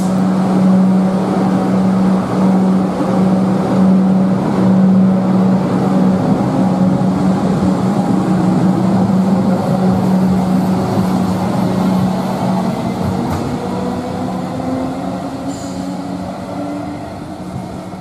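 Electric suburban train pulling out of the platform: a steady hum with a whine that rises slowly in pitch as the motors accelerate, growing quieter toward the end as it moves away.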